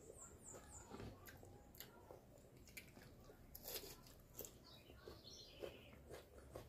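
Near silence with faint, scattered chewing and mouth clicks from people eating boiled chicken and vegetables with their hands. A few faint, short, high chirps sound near the start.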